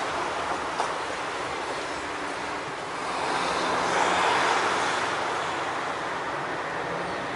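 Street traffic: cars driving through an intersection, a steady rush of tyres and engines that swells as a vehicle passes about three to five seconds in.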